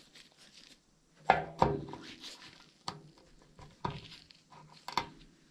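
Handling noise from a cable being tied back with a cable tie: about five separate light clicks and knocks, spread out over a few seconds.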